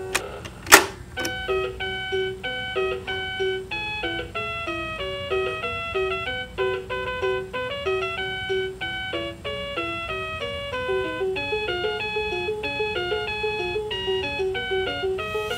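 Plastic click of a peg being pressed on a VTech Hammer Fun Learning Truck about a second in, then the toy plays an electronic melody of quick, chime-like beeping notes.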